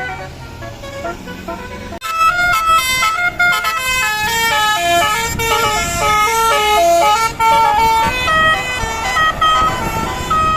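Tour bus's Basuri telolet multi-tone air horn playing a fast melody in stepped, chord-like notes. It starts loud about two seconds in; before that only a low engine hum and a few faint horn notes.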